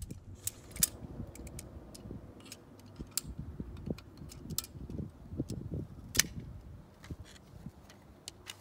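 Scattered sharp clicks and light rattles of a Cobra pistol crossbow with a homemade magazine and stock being handled and readied to shoot, over low handling thumps; the loudest click comes about six seconds in.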